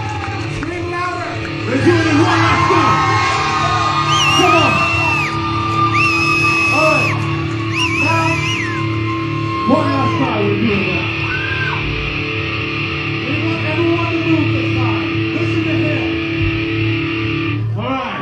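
Live rock band playing loud and steady, with electric guitars holding long notes and a yelled vocal over the top.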